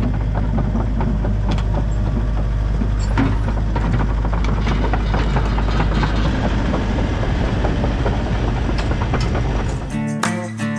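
Heavy diesel engine of a digger (excavator) running steadily under work, with repeated knocks and clanks on top. About ten seconds in it cuts off and acoustic guitar music begins.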